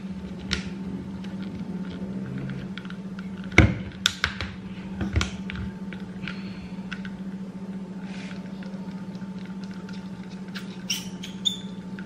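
Plastic trigger sprayer being twisted off and screwed onto a refill bottle of kitchen degreaser, making scattered plastic clicks and scrapes, the loudest about three and a half seconds in. Near the end come a few quick clicks as the trigger is squeezed.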